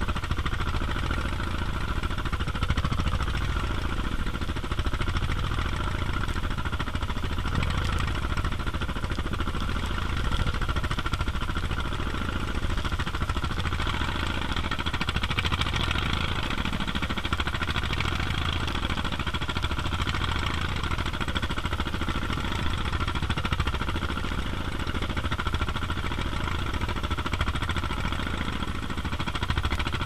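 A small traditional boat's engine running steadily under way, with waves and spray splashing against the hull in a rough sea.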